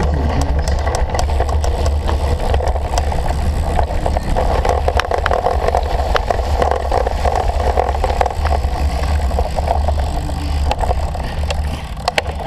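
Cyclocross bike ridden over rough ground: a steady low rumble of wind on the microphone, with the bike rattling and clicking throughout.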